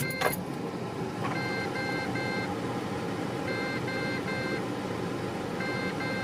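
Ford Falcon AU's dashboard warning chime beeping in groups of three short beeps, a group about every two seconds, over the steady hum of the car running.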